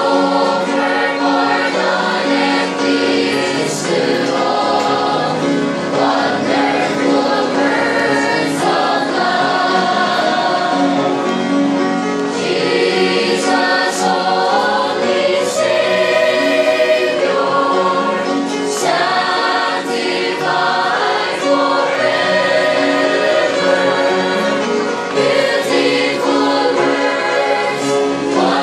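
Mixed church choir singing a hymn in parts, accompanied on an upright piano.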